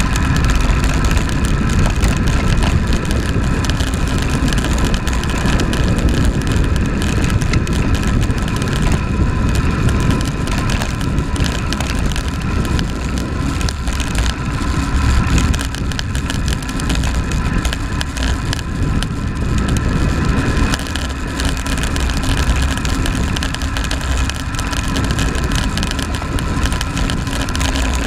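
Wind rush buffeting a handlebar-mounted camera on a road bike descending at speed, with road and tyre rumble carried through the bars. A faint steady whistle runs through it.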